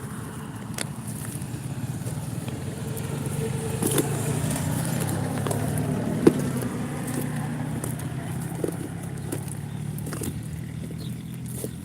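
A motor vehicle running as it passes, its low engine hum growing louder toward the middle and fading again. There are a few short clicks, with a sharp one about six seconds in.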